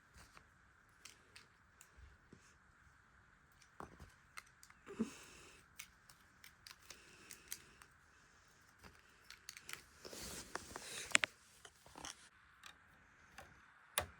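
LEGO plastic pieces being handled: scattered light clicks and taps, a short rattle of pieces about ten seconds in, and a sharper click near the end.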